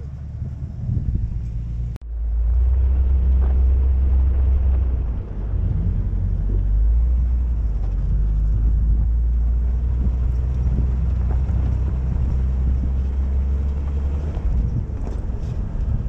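Steady low rumble of an SUV driving slowly over dirt, heard from a camera mounted on its roof, louder from about two seconds in.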